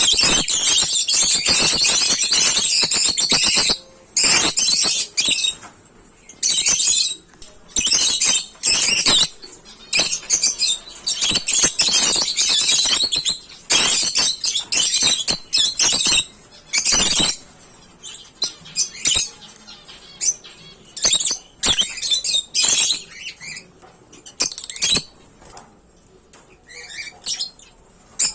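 A flock of African lovebirds chattering and screeching. The calls are a dense, unbroken din for the first four seconds or so, then come in short bursts with brief pauses between.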